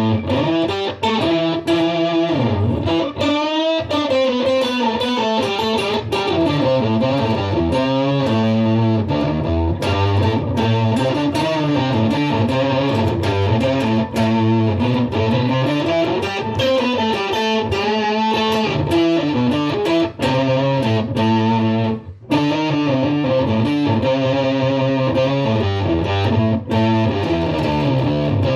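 Electric guitar, a Fender Stratocaster, played through a Fender Mustang GTX100 modelling amp on its 'Striped Orchid' preset, a clean effected tone with strong low bass notes under the melody. The notes run on continuously with one brief break about two-thirds of the way through.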